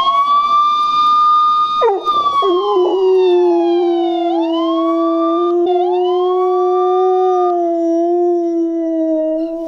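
A siren sound plays from a small Poweradd portable speaker: a steady high tone, then slow falling and rising sweeps. About two seconds in, a Siberian husky joins it in one long, steady howl.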